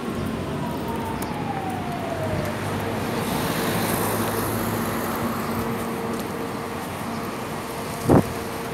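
Street traffic noise with a steady hum, and a tone that slides down in pitch over the first two and a half seconds. A single sharp knock about eight seconds in.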